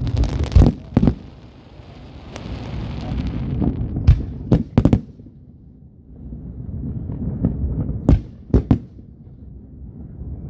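Fireworks going off: sharp bangs in clusters of two or three about every four seconds, with a swelling rumble and hiss between them.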